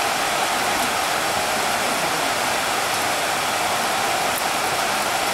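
Steady hiss of heavy rain falling, an even unbroken wash of noise.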